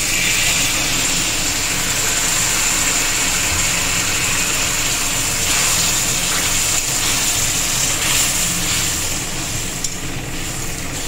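Hot mustard oil and spices sizzling steadily in a kadai after a splash of water is added, steam hissing off as the masala is cooked down.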